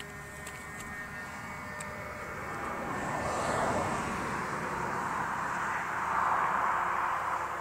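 Radio-controlled model airplane flying overhead: a steady engine drone that fades within the first two seconds, then a rushing noise that swells from about three seconds in and stays loud to near the end.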